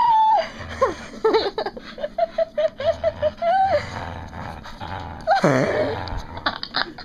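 Dog whining while tugging on a rope toy: high cries that slide in pitch, with a long cry sweeping down about five seconds in, mixed with scuffling knocks.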